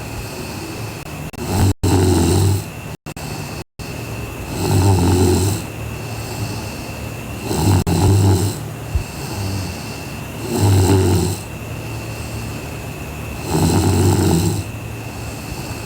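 A sleeping woman snoring, one low snore about every three seconds, five in all. The sound cuts out for a split second three times in the first four seconds, and a faint steady high tone runs underneath.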